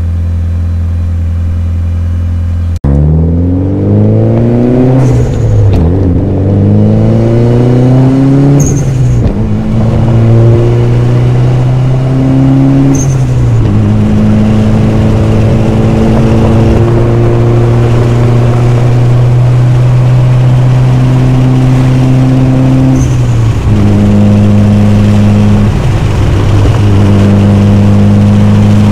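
Turbocharged 4G63 four-cylinder engine of a Mitsubishi Lancer Evolution IX MR on the move. A steady note breaks off abruptly; the engine then pulls up through the gears, its pitch rising and dropping at each shift, settles into a steady cruise, and changes once more near the end. This is a test drive after the VVT solenoid was replaced to cure a P0011 code.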